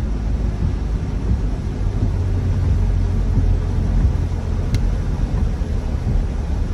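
Steady low rumble of a car driving: road, tyre and engine noise, with a single faint click about two-thirds of the way through.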